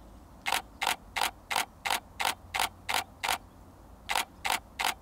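Camera shutter firing in a rapid continuous burst, about three frames a second: nine shots, a short pause, then three more.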